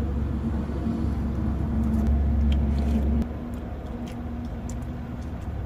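Low, steady rumble of a motor vehicle running, with a faint steady hum above it. It drops suddenly to a quieter level a little over three seconds in.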